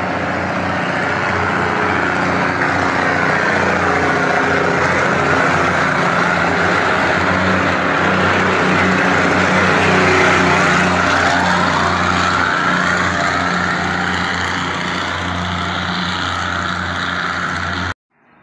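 Diesel train running along a station platform, its engine giving a loud, steady drone as it passes close by. The sound cuts off suddenly near the end.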